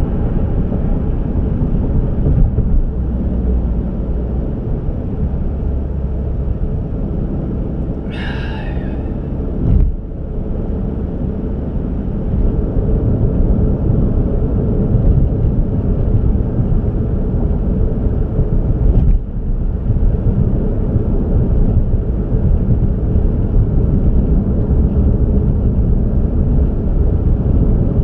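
Steady low rumble of road and wind noise from a moving car. A brief high squeak comes about eight seconds in, then a short thump just before ten seconds.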